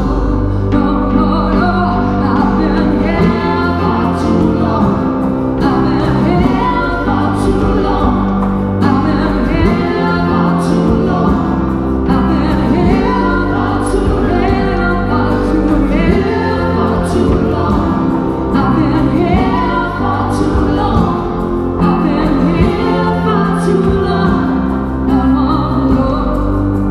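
Live band playing a song with singing, over held low notes and chords that change every few seconds.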